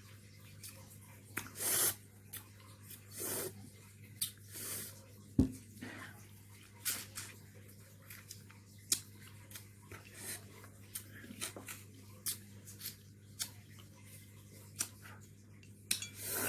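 Scattered small handling sounds: short rustles and clicks every second or two, with one sharper knock about five seconds in, over a steady low electrical hum.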